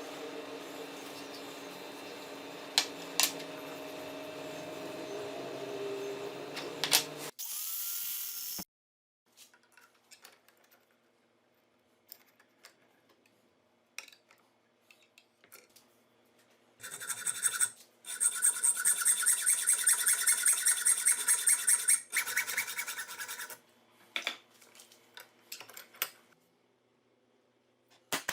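Power tool and workshop handling sounds. A motor runs steadily with scattered clicks, stops after a short loud burst, and is followed by quiet clicks and knocks. Then a buzzing power tool runs for about six seconds.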